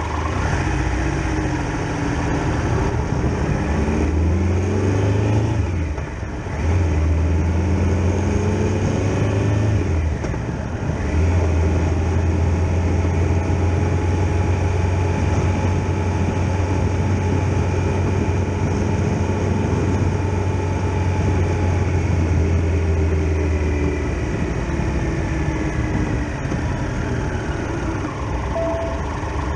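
Triumph Tiger Explorer XRx motorcycle's inline three-cylinder engine running under way, with wind rush on the microphone. The engine note rises and dips twice in the first ten seconds, holds steady while cruising, and eases off near the end.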